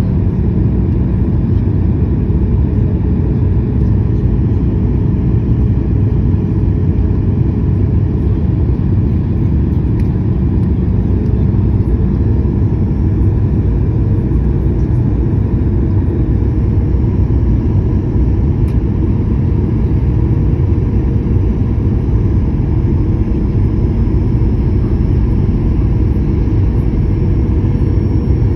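Airliner cabin noise on descent: the steady low rumble of jet engines and airflow heard from a window seat, with a faint steady hum over it.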